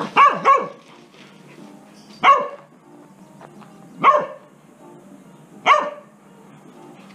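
Elderly red heeler (Australian cattle dog) barking: a quick double bark, then three single barks spaced almost two seconds apart.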